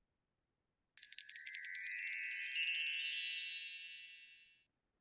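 Wind-chime sound effect used as a scene-transition sting: a cluster of quick, high chime strikes starts about a second in and rings on, fading out over about three seconds.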